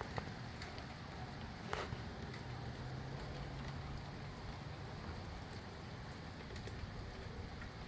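Steady gusty wind in the trees with light rain falling, plus a couple of sharp ticks in the first two seconds.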